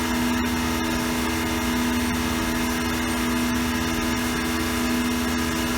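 CNC milling machine running, its end mill taking a light cut on a helical bore: a steady machine hum with a few even tones, the end mill barely working.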